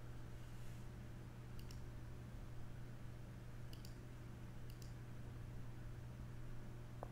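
Computer mouse double-clicking three times, each a quick pair of sharp clicks, over a steady low hum.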